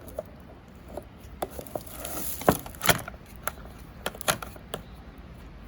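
Clicks, taps and knocks from handling a welding face mask and its handle, with a brief rustling scrape partway through and the two loudest knocks close together near the middle.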